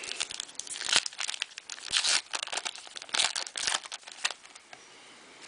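Foil trading-card pack wrapper being torn open and crinkled by hand, a rapid run of irregular crackling rustles that stops about four seconds in.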